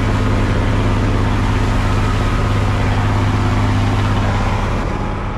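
Boat engine running steadily at cruising speed, a low drone under the rush of wake water and wind. It begins to fade near the end.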